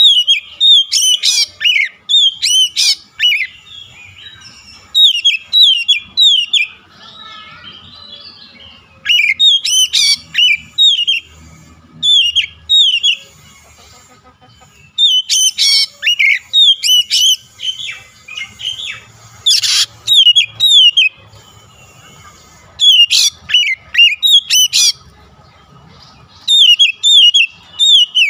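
Oriental magpie-robin singing in repeated bouts of rapid, downward-slurred whistled notes, each bout lasting one to a few seconds with short pauses between.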